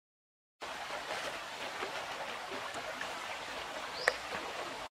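Steady rush of a flowing stream, with small crackling noises from hands pulling apart a ripe jackfruit and one sharp snap near the end.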